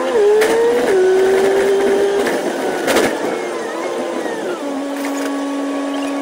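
Alexander Dennis Enviro500 MMC double-decker bus's engine and drivetrain, sped up eightfold into a high mechanical whine. Its pitch holds while the bus drives on, then drops at about four and a half seconds to a steady idling hum as the bus comes to a stop. A couple of short knocks sound.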